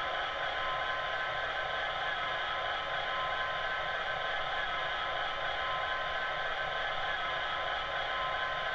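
A Bachmann Class 66 model locomotive's DCC sound decoder playing a diesel engine idling, the recorded sound of the real loco's EMD two-stroke V12, through the model's small on-board speaker. It is a steady, thin, tinny hum with a few held whining tones and no bass.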